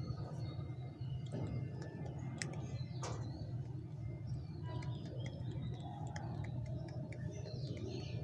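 Birds chirping in short high calls with many small clicks, over a steady low hum.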